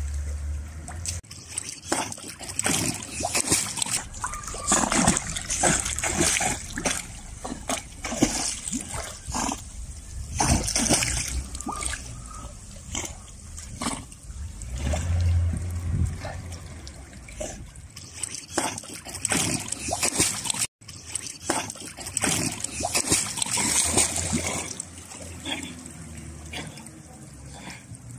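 A dog paddling through a swimming pool, water splashing and sloshing around it in irregular bursts.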